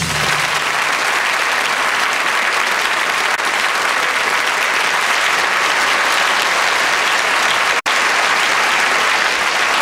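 Studio audience applauding steadily, the band's last low note dying away at the very start. The sound cuts out for a split second near the end, then the clapping carries on.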